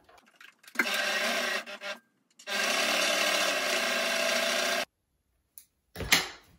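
Janome electric sewing machine stitching a seam through patchwork cotton: a short run of about a second, a brief pause, then a steady run of about two and a half seconds that stops abruptly. A short sharp sound comes near the end.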